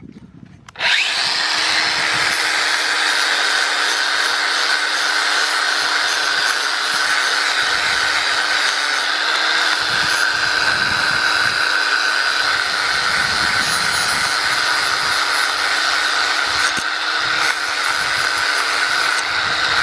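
Cordless power tool starting up about a second in and then running steadily with a constant hum, being used to clean up a motor part.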